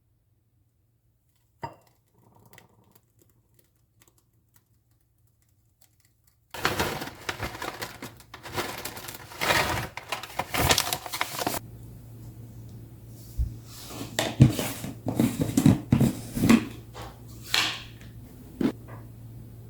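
Several seconds of near silence with a single click, then kitchen handling sounds: dishes and utensils clattering, knocking and clinking. After the first burst of clatter a steady hum sets in under the knocks.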